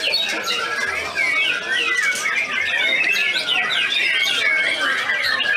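Many caged songbirds singing at once in a dense, overlapping chorus of quick chirps, trills and whistles.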